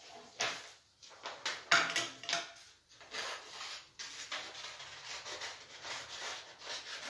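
Sheets of green craft paper rustling and crinkling as they are picked up and handled, with the loudest rustle about two seconds in, then a steady rough rubbing of paper from about three seconds in.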